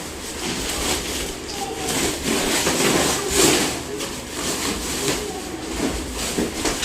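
Packing material rubbing and rustling in irregular strokes, loudest about three and a half seconds in.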